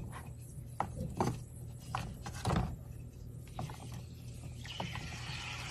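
Water-soaked white chalk blocks being pressed and broken by hand in a bowl of water: a series of separate soft crunches and cracks, then a faint steady fizzing hiss starting a little before the end.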